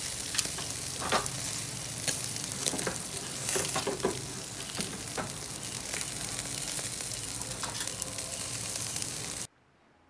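Meat sizzling on a grill over hot charcoal, a steady hiss with frequent sharp pops and crackles; it cuts off suddenly near the end.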